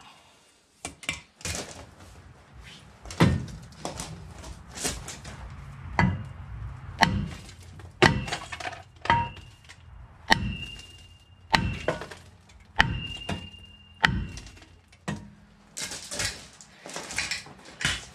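Hammer blows on a rust-seized brake rotor, roughly one a second, several with a short metallic ring.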